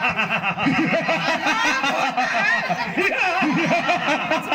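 A man laughing loudly into a stage microphone over a public-address system. It opens with an even, rapid 'ha-ha-ha' of about five syllables a second, then runs on in more broken laughter.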